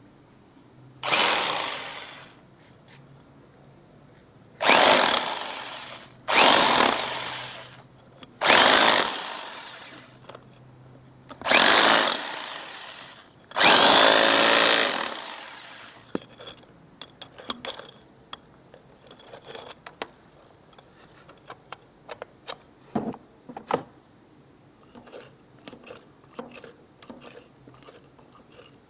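Corded rotary hammer drill boring through a plastered wall in six short bursts, each starting suddenly and dying away over about a second as the trigger is released. After that come scattered light taps and clicks.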